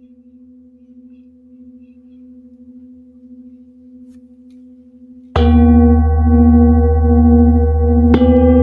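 A metal singing bowl rings faintly with a slow wavering hum. It is then struck with a felt mallet about five seconds in and again near the end, and each strike rings out loud and long, with a deep low tone under many layered overtones.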